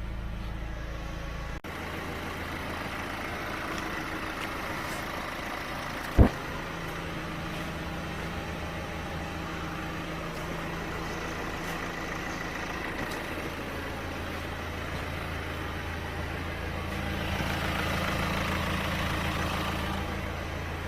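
Chevrolet 1.6 diesel engine idling steadily, with one sharp knock about six seconds in and the engine growing a little louder near the end.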